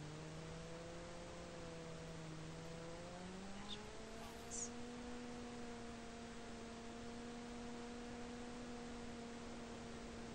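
Electric motor and propeller of a SonicModel Mako FPV plane droning at a steady pitch, then rising in pitch about three seconds in as it throttles up, and holding the higher pitch. Two brief high chirps come about four seconds in.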